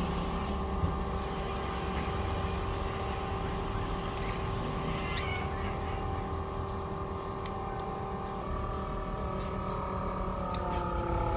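Vacuum pump of an LCD separator machine running steadily with a hum, holding the screen down by suction, with a few light clicks. Its tone shifts about eight seconds in and starts to waver near the end.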